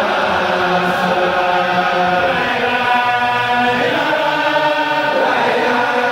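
Congregation of men chanting together in unison: a devotional chant sung in long held notes that slowly rise and fall.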